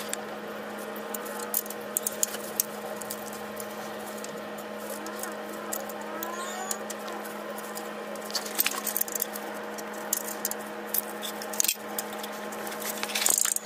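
Light clicks and taps of hand tools on the DD15 engine's valve train during a valve lash adjustment, over a steady hum, with a busier cluster of clicks near the end.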